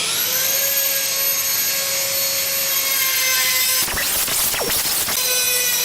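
High-speed rotary cutting tool spinning up and running with a steady high whine. About four seconds in it bites into the stainless steel wire of a sponge basket: a burst of grinding noise and the pitch sags briefly, then it runs free again.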